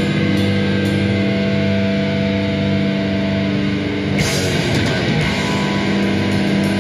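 Live grindcore band playing: distorted electric guitars and bass ring out on held chords over drums, with a crash about four seconds in before the riff picks up again.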